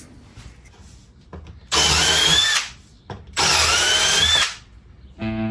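Power drill run twice in short bursts of about a second each, its motor whine rising as it spins up, as used for driving screws into plywood van cabinetry.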